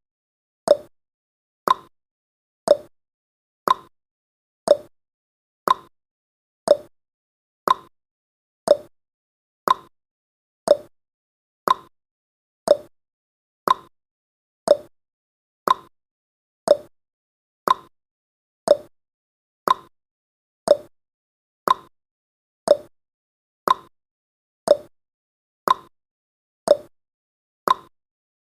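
Clock-style ticking sound effect keeping time for a countdown timer: one short, sharp tick each second, steady and even.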